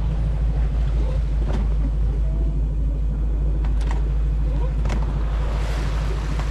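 A sailing yacht's engine running steadily under motor, a low drone, with water rushing along the hull and a few light clicks.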